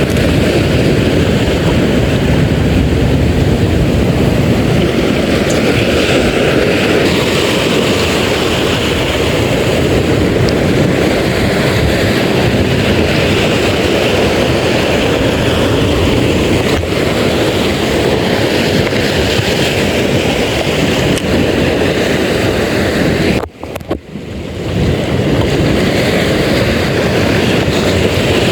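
Steady rushing wind on the microphone mixed with the sound of sea waves. The noise drops out sharply for about a second near the end.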